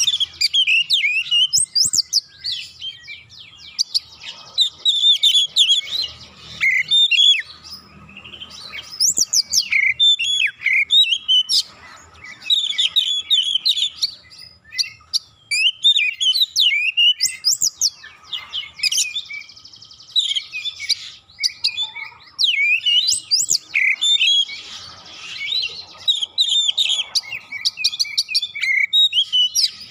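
Oriental magpie-robin (kacer) singing a full, continuous song of fast, varied whistles and chirps, phrase after phrase with only short pauses: the dense 'gacor' song used as a lure to prompt other magpie-robins to sing.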